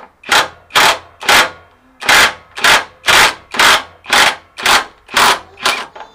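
A rhythmic series of about eleven short, harsh strokes, like a tool rasping or striking on metal, about two a second, with a brief pause about a second and a half in.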